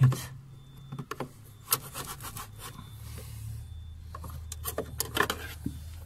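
A blade scraping and knocking at ice around a refrigerator's frozen defrost drain hole, in short scraping strokes, to clear the blocked drain. A low steady hum runs underneath.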